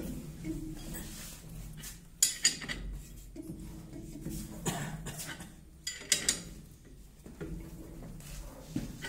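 Irregular metallic clinks and clicks of a spanner working the screw of a bearing puller as it draws a bearing off a motor's rotor shaft, with two sharp double clinks about two and six seconds in. The bearing is tight and coming off with difficulty.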